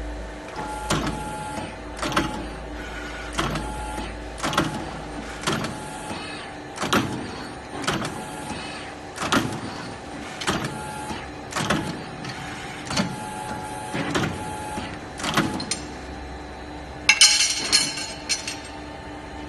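CNC servo tube bending machine bending steel tube into car headrest frames: a steady machine hum with a sharp clunk about every second as the machine steps through its bends. Near the end, a brighter metallic clatter of bent steel frames.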